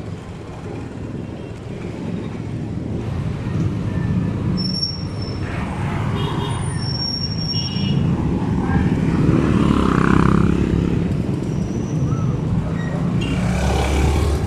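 Street traffic: the engines of passing vehicles running, growing louder in the middle as one passes close. A few short high squeaks sound over it.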